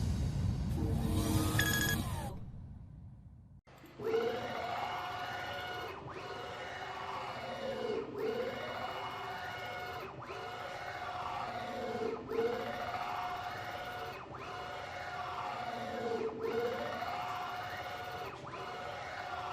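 Stepper motor driving a CNC Z axis along its ball screw back and forth, about one stroke every two seconds: a whine that rises as the carriage speeds up and falls as it slows, with a brief pause at each reversal. A different sound fades out over the first three seconds before the motion starts with a click.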